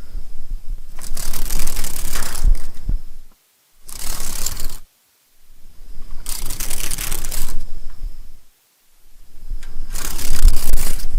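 Dragonfly wings whirring in flight, in repeated bursts of one to three seconds separated by brief pauses, two of them silent.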